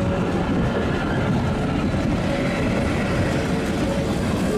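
Metre-gauge passenger coaches rolling past close by, steel wheels rumbling steadily on the rails. A faint steady whine comes in during the second half.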